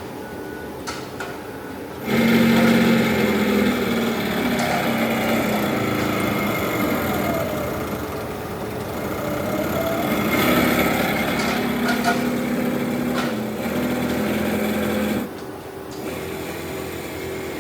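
Live-tooling drive motor in a Hardinge GS-51 CNC lathe turret spinning up and running with a steady whine, its pitch dipping and coming back up midway, then stopping suddenly near the end.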